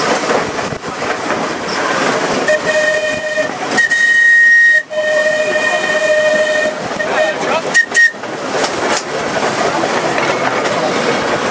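Manx Electric Railway electric tramcar's whistle sounding a few long blasts from about two and a half seconds in, then two short toots around eight seconds, over the running rumble of the open crossbench car on the rails.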